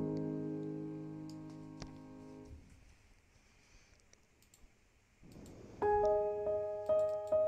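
Background piano music: a held chord fades out, there is a gap of about three seconds, and new piano notes come in about six seconds in. A few faint clicks sound over it.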